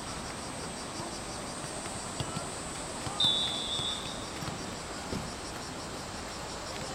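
A referee's whistle blown once, a short single blast of just under a second, about three seconds in. Faint distant shouting from players and spectators and a steady high insect drone run underneath.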